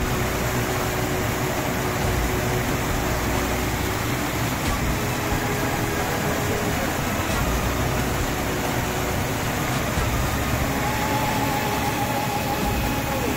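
Mountain stream rushing and splashing in white-water cascades over rocks: a steady, loud wash of water.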